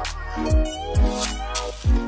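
Background music with a steady beat of deep kick drums under held chords.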